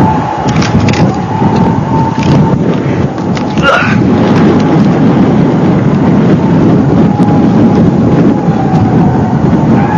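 Air-raid warning siren holding a steady, slightly wavering tone over a loud continuous rumble.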